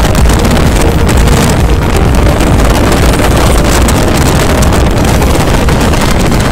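Wind buffeting the microphone of a moving motorcycle, steady and loud, with the motorcycle's engine droning low underneath.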